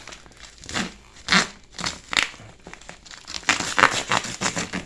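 Shipping packaging being cut and torn open by hand, with irregular crinkling and tearing rustles that are loudest about a second and a half in and again near four seconds.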